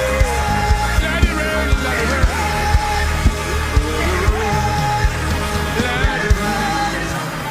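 Gospel worship music with a steady drum beat of about two strokes a second under a sung melody line. The drums and bass drop out about seven seconds in.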